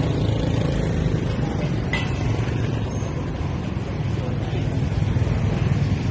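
Motorbike traffic running close by, heard from a moving bicycle, with a steady low rumble of wind and road noise on the handlebar microphone. A brief click about two seconds in.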